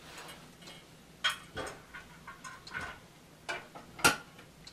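Sharp metal clicks and clinks from a cinema seat's metal leg standard and its bolts as they are handled and fitted together. There are about five separate clicks, the loudest near the end.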